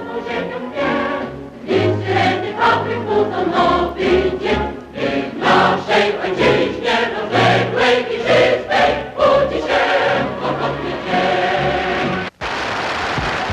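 Choir singing with instrumental backing. A little over twelve seconds in, the music cuts off abruptly in a split-second dropout, and steady crowd noise follows.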